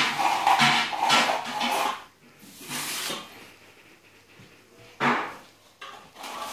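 Background music ends about two seconds in. Then a steel plastering trowel scrapes against a plasterer's hawk a few times as plaster is loaded, the sharpest scrape about five seconds in.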